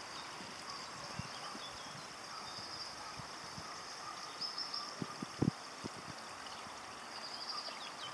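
Water trickling and splashing steadily into a garden fish pond, with a few short low thumps about five seconds in.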